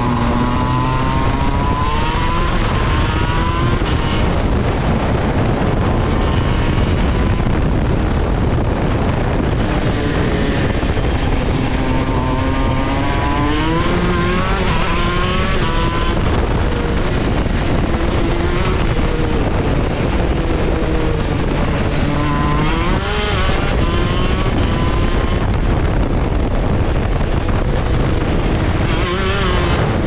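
Shifter go-kart's two-stroke engine at full throttle, its pitch climbing steeply and dropping back again and again as the kart accelerates and is shifted through its gears, over a steady rush of wind noise.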